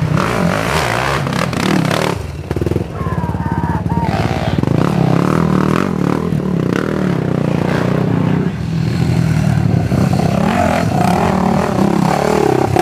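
Racing quad (ATV) engines running hard, the engine note rising and falling as the riders work the throttle.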